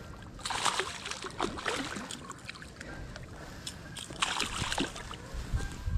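A hooked fish thrashing and splashing at the water's surface close to the bank, in several bursts: about half a second in, again around a second and a half, and once more just past four seconds.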